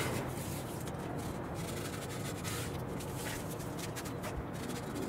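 Fingers rubbing along a self-adhesive velcro strap to press it onto a window frame: a soft, steady rubbing.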